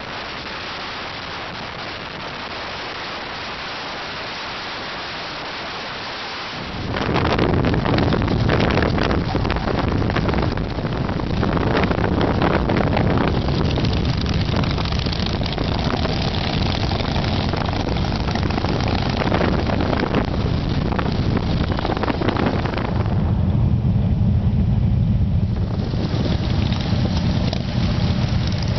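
Steady wind and road noise from riding on a highway. About seven seconds in, it changes suddenly to louder motorcycle engine rumble with wind rushing on the microphone as the bike rides in a motorcycle procession. For a few seconds near the end the wind drops away while the engine rumble stays.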